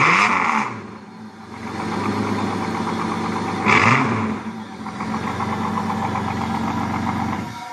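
Holden VN Commodore's 3.8 L V6 with its exhaust still fitted, blipped once near the start and again about four seconds in, settling to a steady idle between the revs. The sound cuts off suddenly just before the end.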